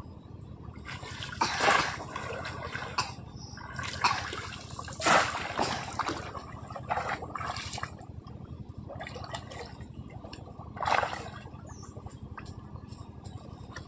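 Shallow water splashing and sloshing in about five separate bursts, the loudest about five seconds in.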